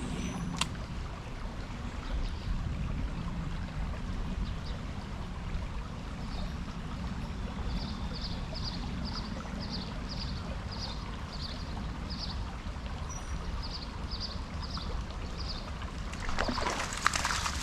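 Creek water running steadily with a low rumble. Through the middle a short high chirp repeats about once a second, and near the end a louder burst of sloshing and rattling comes in.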